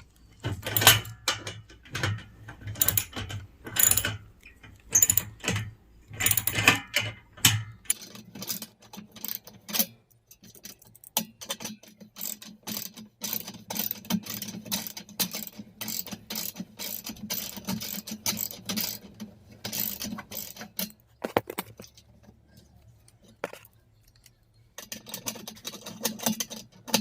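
Ratchet wrench clicking in quick runs as it is swung back and forth, undoing rusted bolts on a bed frame. Louder, spaced strokes in the first several seconds give way to rapid, steady clicking.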